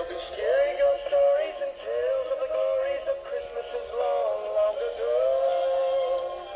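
Sound N Light animated plush reindeer playing a Christmas song through its built-in speaker: a sung melody over backing music, carrying on without pause.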